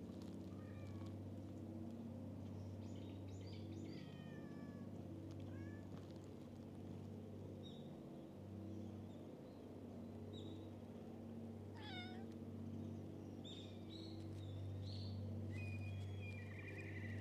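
Stray cats meowing several times, short calls scattered through, one a longer call about two-thirds of the way in, over a faint steady low hum.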